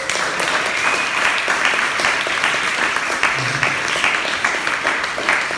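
Audience applauding: many people clapping at once, a dense, loud patter of hands.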